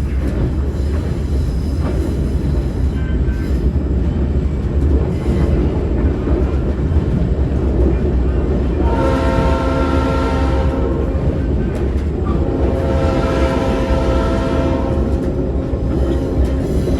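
A locomotive's horn sounds a grade-crossing signal over the steady rumble and rail noise of the moving passenger coach. It gives one long blast of about two seconds about nine seconds in, then a second long blast starting about a second later that is still going at the end: the first two long blasts of the two long, one short, one long crossing pattern.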